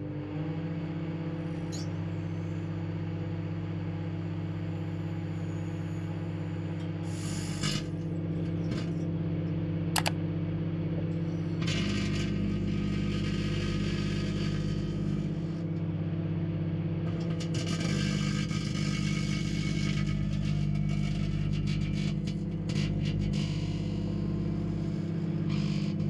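Microwave oven running with a steady low hum. About twelve seconds in, and again a few seconds later, loud crackling and fizzing join the hum as the incandescent light bulb inside arcs and glows; its filament melts and gas escapes from the glass in a little jet.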